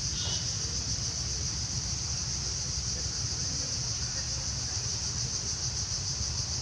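Steady high-pitched chorus of insects, a continuous shrill hum that does not break, over a low rumble.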